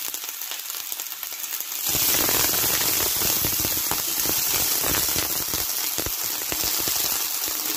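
Shallots and garlic sizzling and crackling in hot oil in a wok. About two seconds in, diced potato and carrot are dropped in by hand and the sizzle jumps much louder, with dense crackling that keeps on.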